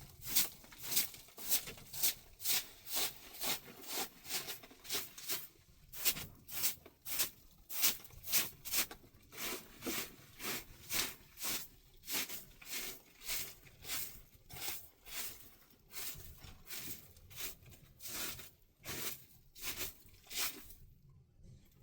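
Rhythmic scraping, about two strokes a second, that stops shortly before the end.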